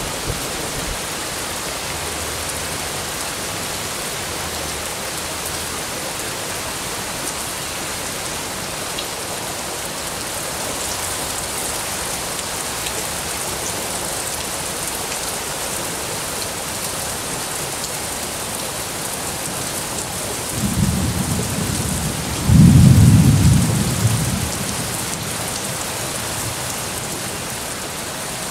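Heavy rainy-season downpour falling steadily, with a deep rumble of thunder about three-quarters of the way through that swells twice and then fades over a few seconds.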